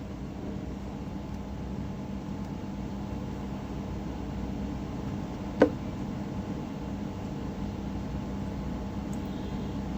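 Steady low background hum with a faint constant tone, broken once a little past halfway by a single sharp click.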